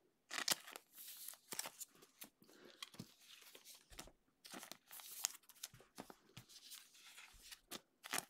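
Thin clear plastic penny sleeves crinkling and rustling as trading cards are slid into them, in many short, irregular rustles.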